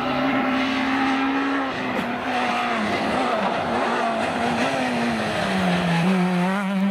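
Renault Clio rally car's engine running hard as the car approaches along a winding stage. The note dips and climbs several times as the driver lifts and gets back on the throttle through the bends, then drops and settles lower near the end as the car slows for a corner.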